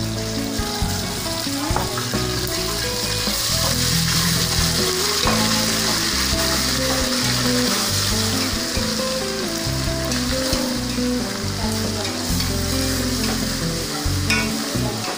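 Ginger-garlic paste sizzling steadily as it fries in hot fat in an aluminium pressure cooker, stirred with a spoon. This is the sautéing stage, meant to cook off the paste's raw smell.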